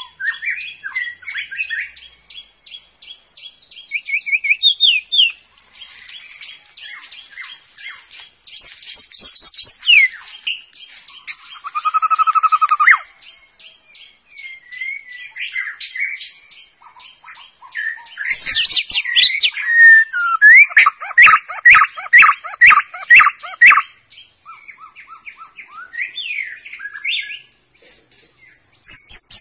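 White-rumped shama (murai batu) singing a long, varied song: fast runs of repeated high notes, sweeping whistles and a lower whistled phrase in the middle, with the loudest run of rapid notes in the second half.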